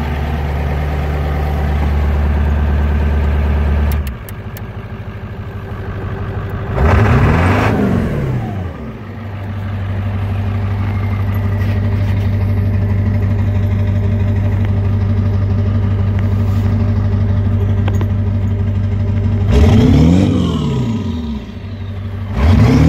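7.3L Power Stroke turbodiesel V8 running just after a hard cold start. Its sound drops abruptly about four seconds in, and it is revved briefly three times, each a quick rise and fall in pitch: about seven seconds in, about twenty seconds in, and near the end.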